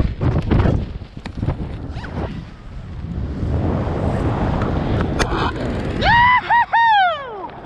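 Wingsuit BASE jump: the rush of freefall wind on the microphone cuts off sharply as the parachute opens, leaving quieter canopy flight with fabric rustles and knocks. About six seconds in comes a loud, high whooping yell in several falling 'woo-hoo' cries.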